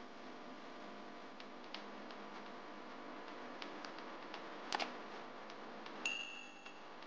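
Faint steady hum and hiss with scattered light ticks. A sharp double click sounds about halfway through, then a short bell-like ding about six seconds in, from a subscribe-button animation.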